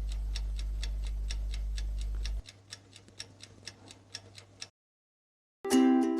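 Clock-style ticking sound effect, about five even ticks a second, over a steady low hum that stops about two and a half seconds in; the ticking goes on fainter and then stops. After a moment of silence, ukulele music starts near the end.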